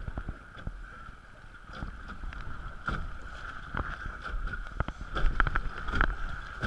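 Kayak paddle strokes dipping and splashing in fast-flowing creek water, an irregular series of splashes that grow louder in the second half, with water rushing past the hull and wind rumbling on the microphone.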